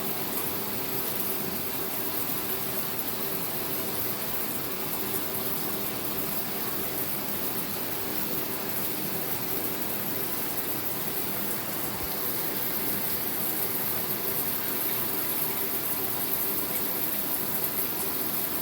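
Shower running: a steady hiss of water spraying and splashing, slightly louder near the end.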